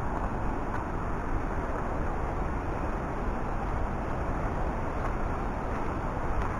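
Steady rushing roar of the Rhine Falls' water, an even noise with no distinct events.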